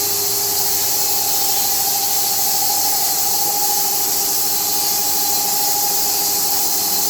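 SMFA 1000 fully automatic horizontal band sawmill running: a loud, steady hiss with a constant whine and a low hum underneath.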